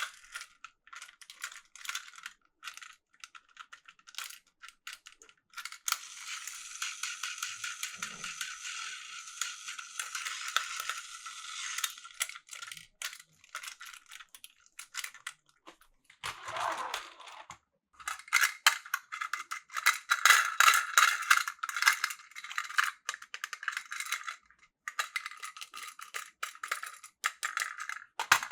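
Battery-powered Plarail toy trains running on plastic track, a dense stream of clicking and rattling over a steady high motor whine.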